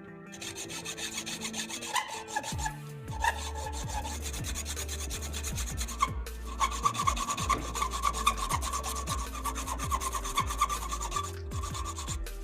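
Rapid, repeated rasping and scraping strokes of a hand tool working a part, with a steady low hum starting about three seconds in.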